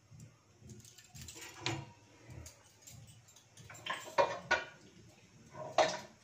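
A few light clatters and knocks of kitchen utensils in three short clusters, about a second in, about four seconds in and near the end, over a faint low rumble.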